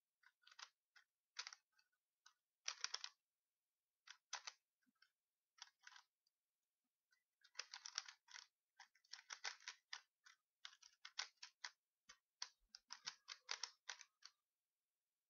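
Rubik's cube being turned fast by hand: quick runs of plastic clicks and clacks as the layers snap round, broken by short pauses and busiest in the second half.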